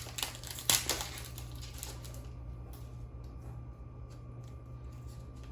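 Foil trading-card booster pack crinkling as it is torn open, with a sharp rip just under a second in. After that come faint clicks of cards being handled over a low steady hum.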